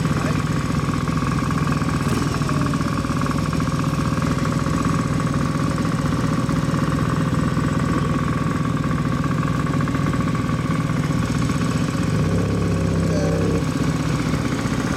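Motorcycle engines idling steadily.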